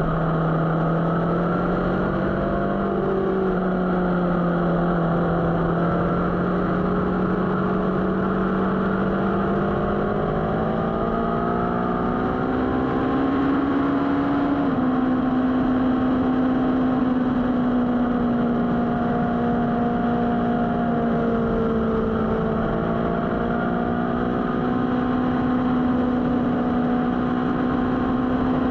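Motorcycle engine running under way at a fairly steady speed, its pitch slowly rising and falling, with a small sudden drop in pitch about halfway through, over steady rushing noise.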